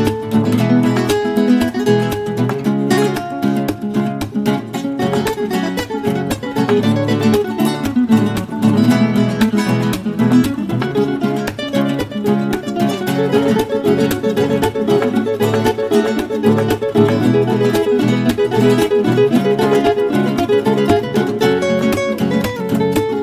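Background music led by acoustic guitar, with many quick plucked notes.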